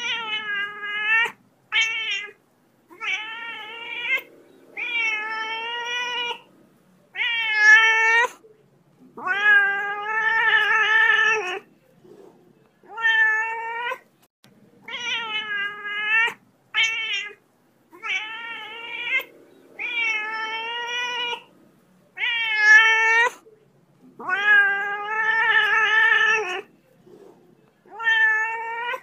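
Domestic cat meowing and yowling over and over: drawn-out calls of about half a second to two seconds, some wavering in pitch, with short pauses between them. The same run of calls repeats about every fifteen seconds.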